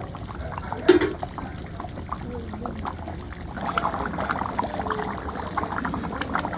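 Water trickling and splashing, with a sharp knock about a second in and a denser spattering from about halfway through.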